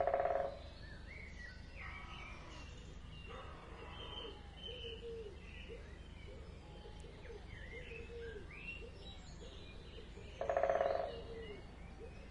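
Wildlife calls at night: two loud, short calls about ten seconds apart, with faint bird chirps and a run of soft repeated low notes between them.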